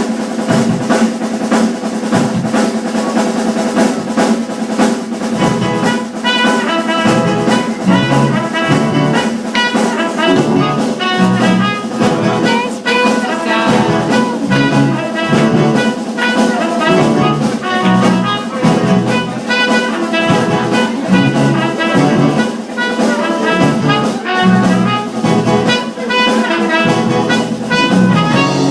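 A band playing live music: a melody line over a steady drum beat.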